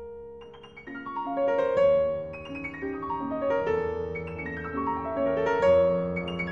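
Background solo piano music: a flowing run of notes that grows fuller after about a second.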